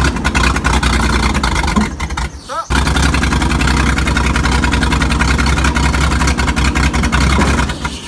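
Early-1960s Dynahoe backhoe-loader's flathead engine running loud with a heavy low rumble while its hydraulics work the raised loader bucket. The sound dips briefly about two seconds in. The engine runs poorly on two dead cylinders, which the owner puts down to a leaking head gasket.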